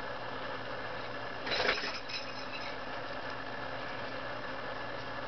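An Allen key working a screw in an HK416 D trigger housing: a short cluster of small metal clicks and a scrape about one and a half seconds in, then a single light tick, over a steady background hiss.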